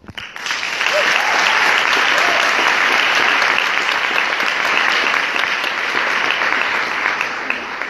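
Audience applauding, starting suddenly and holding steady before fading away near the end.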